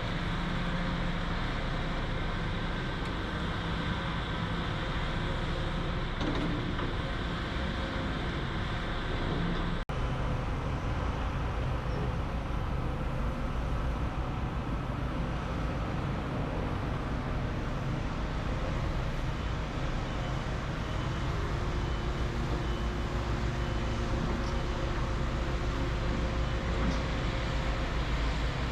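Heavy diesel construction machinery running, a steady low engine drone with a hum of mechanical noise above it; the sound drops out for an instant about ten seconds in, then carries on.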